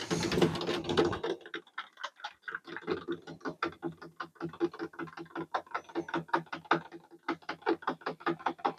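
Metal spoon stirring baking soda into warm water in a plastic cup, clicking and scraping against the cup in quick strokes about four or five times a second, with a second of louder, denser noise at the start.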